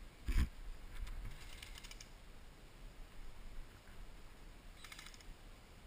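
Short bursts of rapid clicking, heard twice, typical of airsoft electric rifles firing in the distance, after a single dull thump just after the start.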